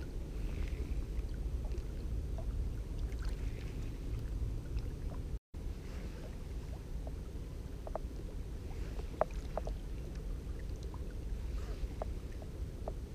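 Steady low wind rumble on the microphone with water lapping at the shore, and a few faint ticks in the second half. The sound drops out completely for a moment about five seconds in.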